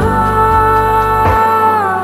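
Slow, chill background music: sustained chords over a steady bass, the chord notes sliding down near the end.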